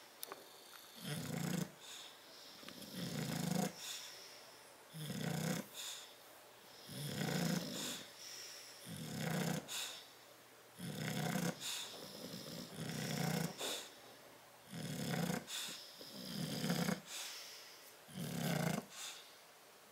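Bulldog snoring in deep sleep: a loud, rough snore about every two seconds, in a steady rhythm.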